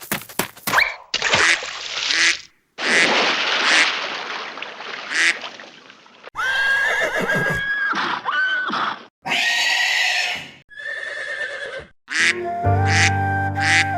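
A run of separate recorded animal calls, chiefly horse whinnies. A woodwind tune starts about two seconds before the end.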